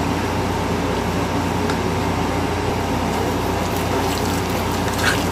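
Steady motor hum with a rushing noise, and a few faint scrapes of a utensil in a stainless steel bowl as cassava batter is mixed, the clearest one just before the end.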